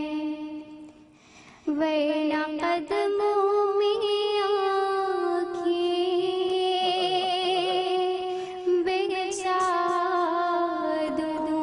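Young woman singing a naat into a microphone, drawing out long held notes with vibrato and melismatic turns; the voice falls away briefly about a second in, then a new long phrase begins.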